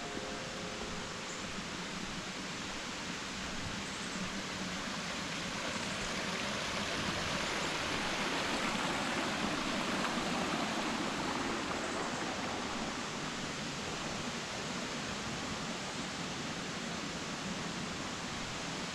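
Rushing water of a waterfall: a steady, even hiss that grows a little louder for a few seconds around the middle.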